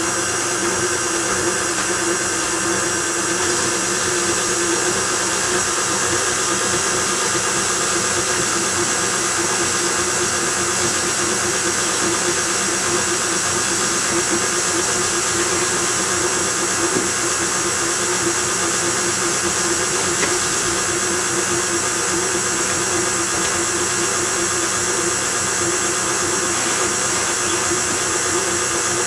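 Hobart-built KitchenAid stand mixer running steadily at speed 6, its motor giving an even, unbroken whine as the dough hook turns through thin batter in a stainless steel bowl.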